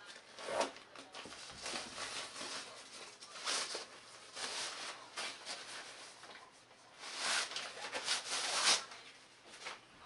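Plastic ground sheet rustling and crinkling as it is handled, in irregular swells, the loudest about three and a half seconds in and again from about seven to nearly nine seconds in.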